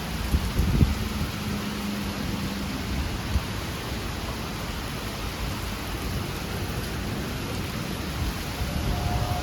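Steady rain from a thunderstorm, with a low rumble and a few thumps in the first second.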